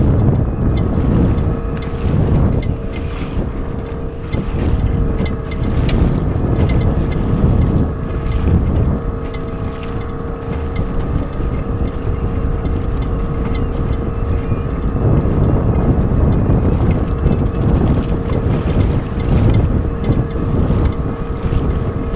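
Wind buffeting the microphone over the steady hum of a small outboard motor running.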